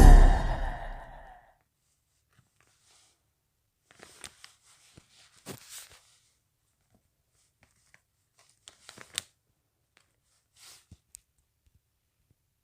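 Background music fading out, then a few faint, scattered crinkles and rustles of collectible stickers being handled.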